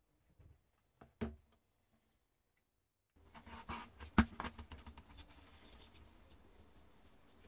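Small metal parts of an old bicycle lamp being handled. There are a couple of soft knocks about a second in, then a gap of silence, then a run of light clicks and taps as the parts are picked up and set down on a hard floor, the sharpest tap about four seconds in.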